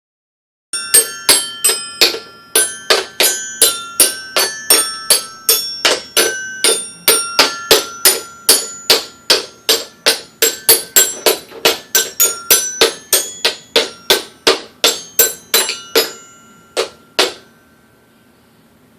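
Toy xylophone's metal bars struck over and over with a mallet, roughly three strikes a second. The bars ring on different notes with no tune, and the playing stops a couple of seconds before the end.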